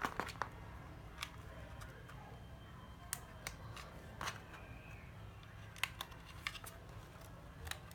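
About ten sharp plastic clicks and knocks, spread unevenly, as a used 7.2 V cordless drill is handled and its trigger tried. The motor does not run: the trigger switch is stiff and seized.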